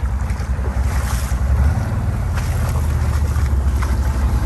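ATV engine running steadily, with wind noise on the microphone.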